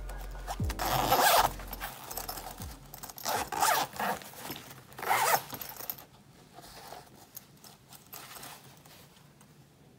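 Zipper on a fabric iPad bag being pulled in a few short strokes, about one, three and a half and five seconds in, with fabric handling noise between them; only faint rustling after about six seconds.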